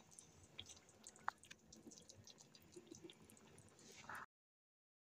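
Near silence with faint scattered pops and ticks of thick curry in an iron karahi, the stove just turned off, and one sharper tick about a second in. The sound cuts off completely a little after four seconds.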